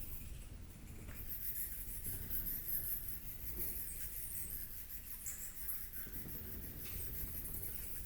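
Outdoor nature ambience: a continuous high-pitched chirring of insects with a few short chirps, over a steady low rumble.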